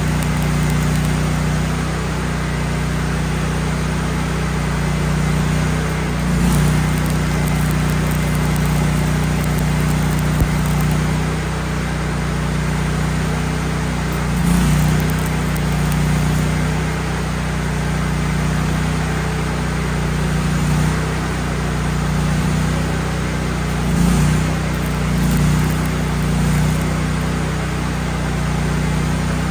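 Gas engine of a Miller Bobcat 250 engine-driven welder running steadily, swelling briefly in loudness a few times.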